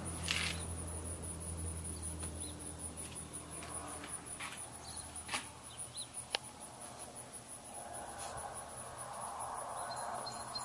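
An insect chirping outdoors in summer: a steady, rapid run of high-pitched pulses repeating evenly, with a few faint clicks in between.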